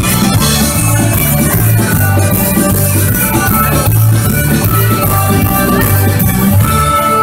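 Southern Italian folk band playing live through a PA: a pulsing bass and drum-kit beat under sustained melody instruments, loud and continuous.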